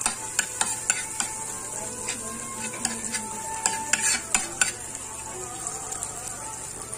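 Pav bhaji sizzling in butter on a hot tawa while a spoon stirs and scrapes it, clicking sharply against the pan many times, most often in the first few seconds.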